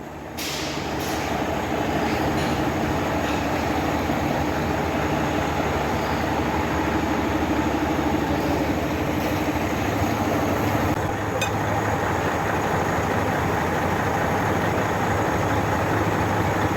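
Heavy machinery running steadily with an engine-like hum, its pitch shifting slightly about eleven seconds in.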